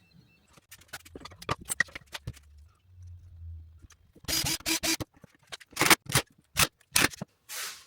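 Handling and scraping noises at a workbench: a quick run of small clicks and taps, a brief faint low hum, then five short scraping or brushing strokes.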